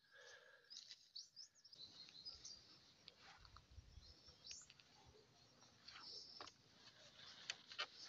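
Faint outdoor quiet with scattered short, high bird chirps.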